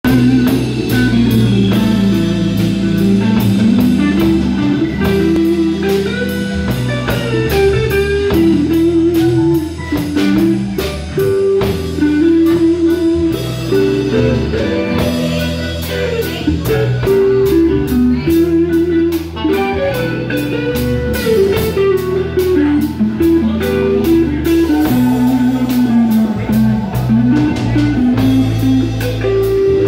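Live blues band playing an instrumental passage: an electric guitar lead with bending lines over drum kit and electric bass.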